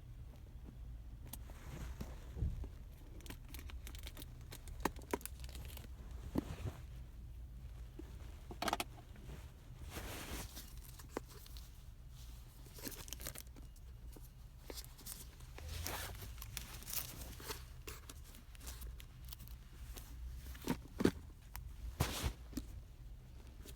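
Packaging of Bose SoundSport Pulse earbuds being handled and opened: irregular rustling, crinkling and tearing, with scattered sharp clicks and taps, over a steady low hum.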